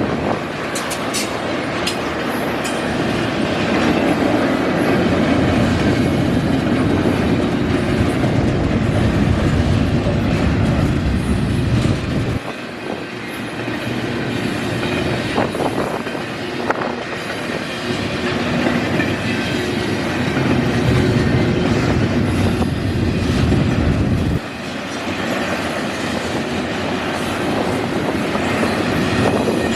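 Canadian National intermodal freight train rolling past, a steady heavy rumble with wheels clicking over the rail joints. The deep rumble eases twice, about twelve and twenty-four seconds in, then builds again.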